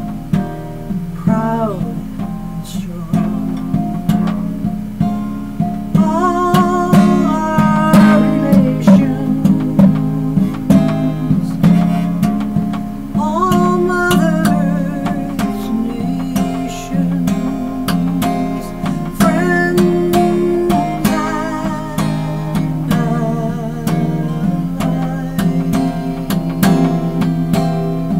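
Acoustic guitar strummed and picked in a slow folk song, with a wordless sung melody that rises in a few times.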